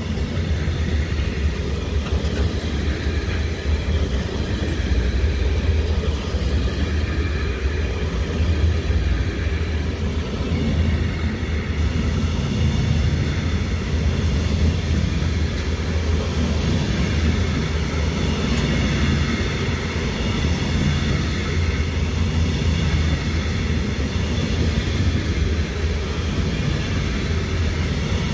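Train rumbling steadily, a continuous low rumble with faint wavering high tones above it.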